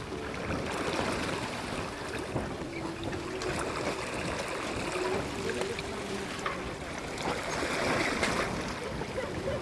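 Water rushing and splashing steadily with a little crackle, the sound of a sailing boat moving through the water, with faint low tones in the background.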